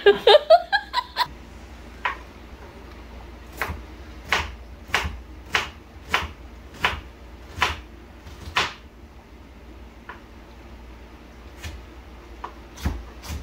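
Kitchen knife chopping a red onion on a wooden cutting board: sharp, even strokes about one and a half a second for several seconds, then a few scattered cuts near the end. It opens with a brief burst of voice-like sounds in the first second.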